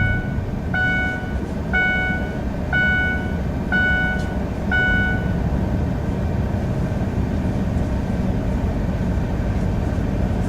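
A car's warning chime sounding six times, about once a second, over a vehicle engine idling.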